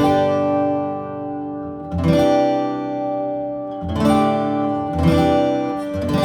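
Taylor 714ce X-braced acoustic guitar strumming chords, each left to ring out, with a new chord struck about every one to two seconds.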